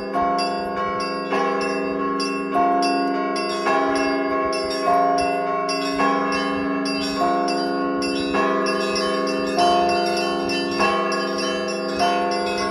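Russian Orthodox church bells rung by a bell ringer. A large bell is struck about every second and a quarter, with quicker strikes of smaller bells between, and their tones ring on and overlap.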